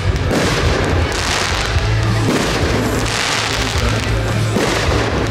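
Fireworks shells bursting several times, with booms and crackle, over music with a held low bass line.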